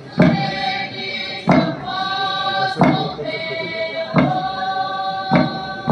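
Kuki traditional dance song: a group of voices singing long held notes together, over a sharp beat struck about every 1.3 seconds.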